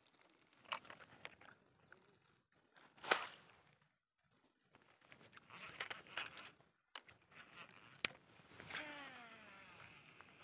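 Baitcasting reel's spool whirring as line pays out on a cast, near the end, its whine falling in pitch as the spool slows. Before it come soft clicks and rustles of handling the rod and reel, with one sharper tick about three seconds in.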